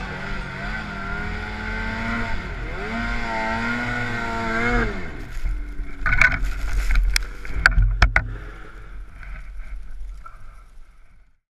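Ski-Doo Summit snowmobile engine revving up and down as the sled ploughs through deep snow. Several sharp knocks and cracks follow about six to eight seconds in as it crashes through brush, then the engine sound dies away near the end.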